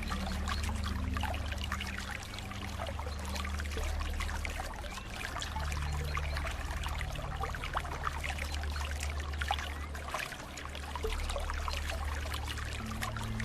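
Running water trickling and splashing without pause, with soft, low, held notes of light background music underneath that change pitch every few seconds.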